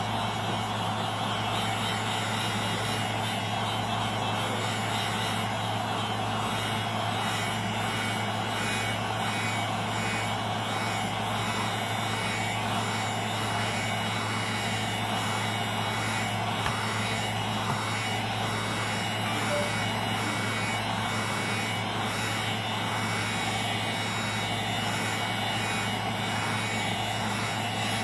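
Heat gun blowing steadily, warming the adhesive under an iPad 2's front glass.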